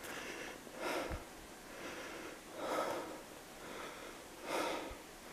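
A person breathing hard, with a soft breath about every second and a half to two seconds.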